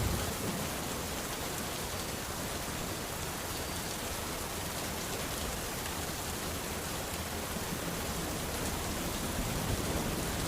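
Steady rain falling, an even hiss of rain on surfaces, with the last of a thunderclap dying away in the first moment.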